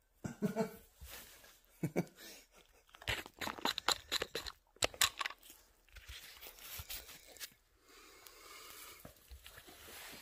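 Footsteps and shoe scuffs on a concrete garage floor mixed with handling noise from a hand-held phone camera: a run of sharp crunching clicks about three to five seconds in, then a softer steady hiss toward the end.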